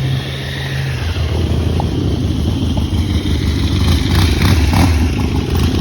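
Motorcycle engines running as bikes ride in; about a second in the engine note drops lower and grows louder.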